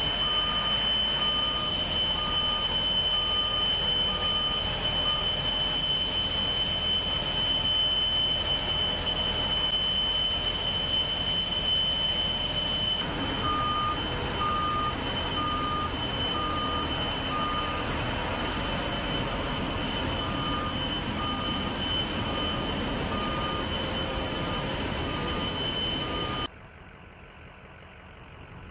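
Steady high-pitched jet whine of aircraft on the flight line, with a forklift's reverse alarm beeping about one and a half times a second in two spells, at the start and again from about halfway through. The whine cuts off abruptly a couple of seconds before the end, leaving a much quieter engine rumble.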